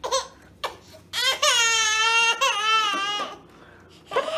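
Baby crying: a short cry at the start, then one long wail from about a second in that lasts about two seconds.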